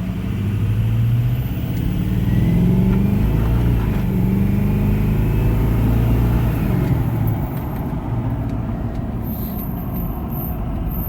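Ford 6.0 Power Stroke V8 turbodiesel pickup accelerating hard at wide open throttle, the engine note pulling strongly through the middle and easing off somewhat after about seven seconds.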